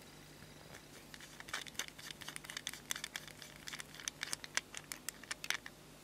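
A rapid run of small metallic clicks and scrapes, starting about a second in, as the knurled fuel-filler screw of a sterling silver petrol lighter is turned out of its threads by hand.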